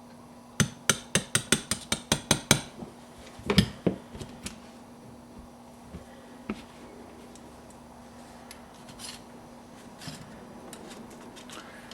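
Small hammer tapping a punch to drive out the pin that holds the outer magazine tube of a Winchester pump-action .22 rifle: about ten quick, light metal taps in two seconds, then two heavier knocks and a few faint clicks of metal parts.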